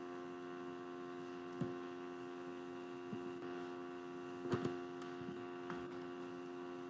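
Steady electrical mains hum, with a few separate clicks of computer keyboard keys and a quick cluster of them about four and a half seconds in.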